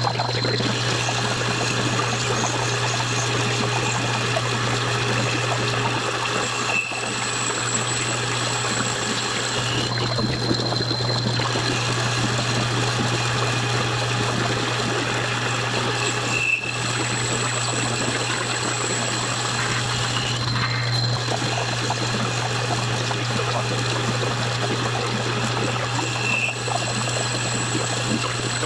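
Metal lathe boring out the centre bore of a round adapter plate: the motor runs with a steady low hum under the even hiss of the cutting tool taking a continuous cut, with a few brief dips in level.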